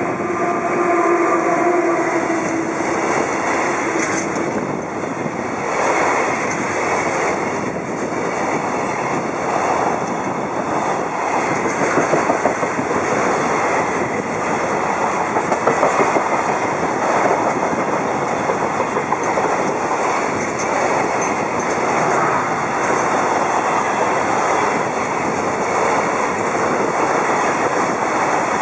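JR Freight EF200 electric locomotive passing with a steady pitched whine in the first couple of seconds, then a long container freight train rolling by: a continuous rumble of wagon wheels with clickety-clack over rail joints.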